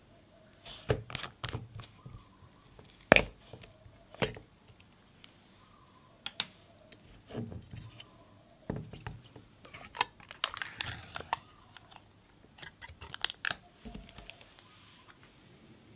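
A glass Nutella jar being opened by hand: its plastic screw lid clicking and rattling as it is twisted off, then its foil seal crinkling as it is peeled and torn away, with a denser crinkling stretch about ten seconds in.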